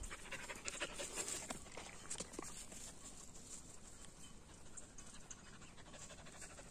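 A dog panting faintly, with light scattered ticks and rustles.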